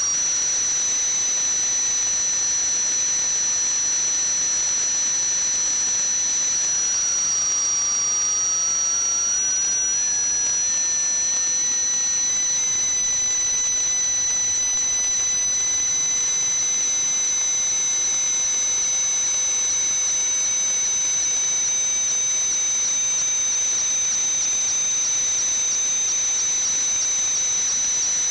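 A steady hiss with several high-pitched whistling tones running together; the lowest tone dips about eight seconds in, then slowly rises and holds.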